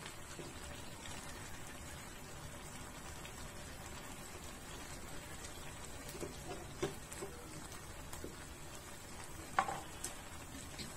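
Pan of cauliflower curry sizzling faintly while it is stirred with a spatula, with a few light taps and scrapes of the spatula against the pan a little past halfway and one sharper knock near the end.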